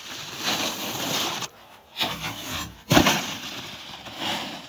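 Snowboard riding across snow, its edges and base scraping, with one sharp knock about three seconds in.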